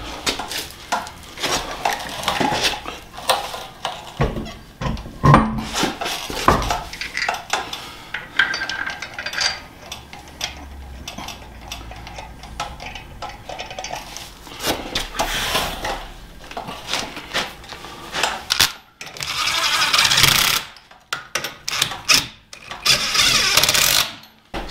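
A wheel and tyre being fitted to a front disc-brake hub: scattered metal clinks and knocks as the wheel goes on and lug nuts are threaded onto the studs. Near the end come several harsh noisy stretches of about a second each.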